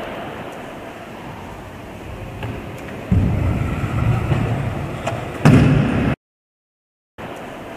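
Stunt scooter wheels rolling on a wooden ramp as a low rumble starting suddenly about three seconds in, then a loud slam of the scooter landing on the ramp about five and a half seconds in. The sound then drops out completely for about a second.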